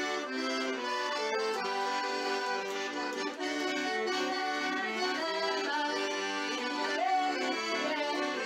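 Accordion (sanfona) playing a tune, a melody moving over sustained chords.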